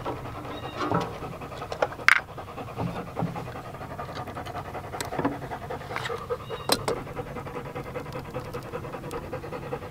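A dog panting steadily, with a few sharp clicks of wire strippers cutting and stripping a battery cable end.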